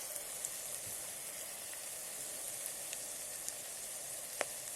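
Bitter gourd frying in hot oil in an electric kettle: a steady sizzle with scattered small crackles, and one sharper click near the end.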